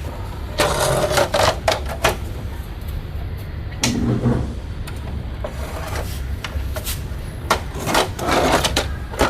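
Handling noises from unboxing a remote control toy car: clusters of sharp clicks and rustles of box and plastic packaging, about a second in and again near the end, over a low steady hum.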